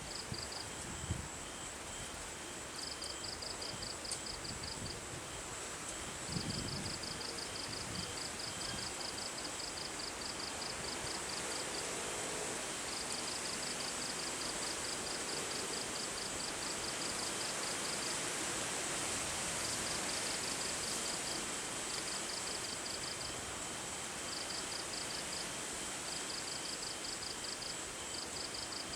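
Storm wind blowing steadily across an open field, with insects calling: rapid pulsed chirping in trains of a few seconds each over a thin, steady high whine. A few low bumps of wind on the microphone in the first eight seconds.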